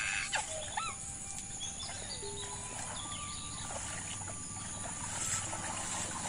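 Rural outdoor ambience with birds calling: two quick swooping calls about half a second in, over a steady high-pitched insect drone.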